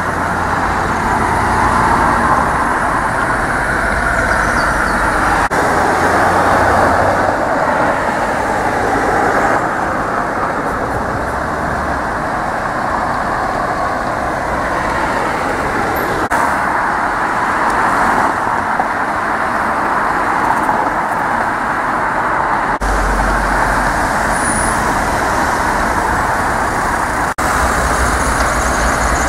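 Steady road traffic noise from a stream of cars and vans passing on a busy street. A low rumble comes and goes underneath.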